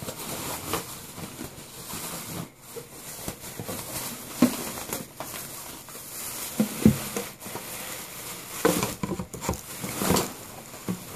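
Thin plastic shopping bag rustling and crinkling as hands rummage through it, with scattered clicks and a few sharper knocks of plastic hangers being pulled out of the bag.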